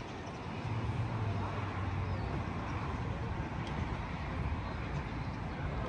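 Distant city traffic: a steady wash of road noise with a low engine hum that fades out about two seconds in.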